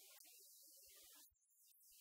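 Near silence: faint room tone with a light hiss.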